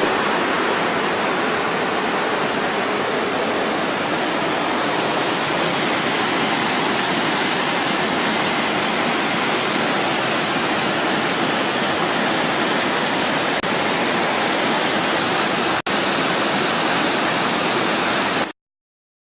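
Yosemite Creek's water rushing in a steady, even hiss. It drops out for an instant near the end, then cuts off suddenly.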